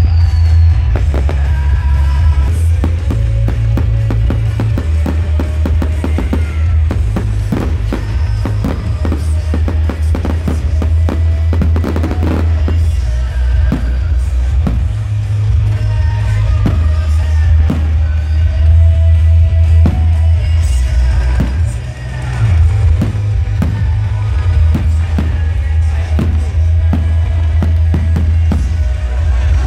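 Music with a heavy bass and a drum beat, mixed with the bangs of a fireworks display.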